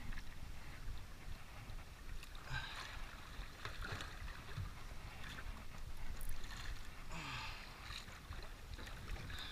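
Wind on the microphone and sea water moving around a small outrigger boat, a steady low rumble with two brief hissing surges, about two and a half and seven seconds in.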